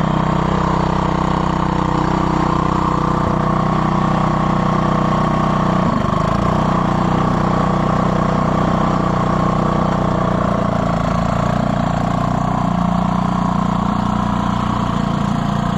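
The 3.5 hp Briggs & Stratton engine of a single-stage snowblower runs steadily as it clears heavy, wet snow. Its note shifts slightly with the load a few times.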